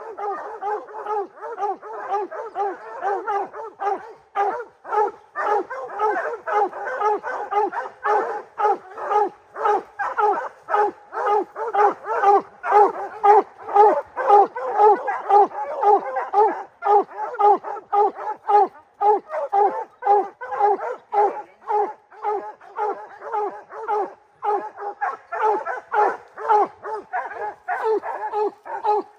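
Bear hounds barking at a treed black bear: a steady run of rapid, repeated barks that does not let up. This is the tree bark that hounds give when their quarry is treed.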